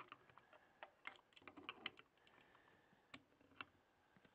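Faint, scattered small clicks and taps of metal carburetor parts being handled and fitted by hand, as a piece of the Keihin carburetor's choke linkage is worked into place.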